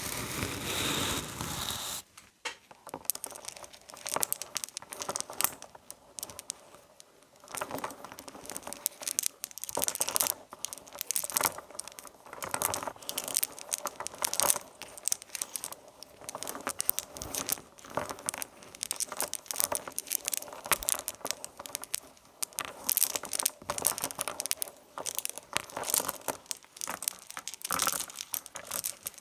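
A steady noise for about two seconds that cuts off suddenly, then a long run of irregular crinkling and clicking, close handling noise.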